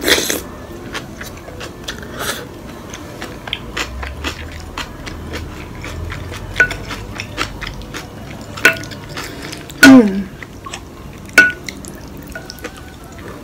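Close-up eating sounds: a wooden spoon scooping and knocking in a ceramic bowl of soupy beef-bone rice porridge, with wet mouth sounds of eating between. The spoon clicks are light and frequent, with a few sharper knocks, some ringing briefly, a little before and after ten seconds in.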